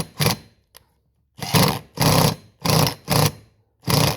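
Power drill/driver run in a series of short bursts, each under half a second, with a gap of about a second early on. It is driving a self-tapping bolt that cuts threads into an unthreaded bolt hole of a new chainsaw cylinder.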